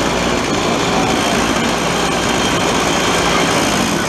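A kid kart's Comer 50cc two-stroke engine running steadily at low speed and idle, recorded up close on the kart as it rolls in and stops.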